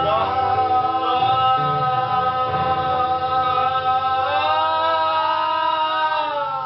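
Voices singing one long held note together over a backing track, bending in pitch near the end.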